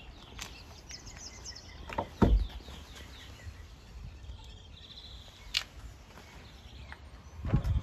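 Birds chirping with short high trills. Two brief low bumps, about two seconds in and near the end, are the loudest sounds, over a steady low rumble.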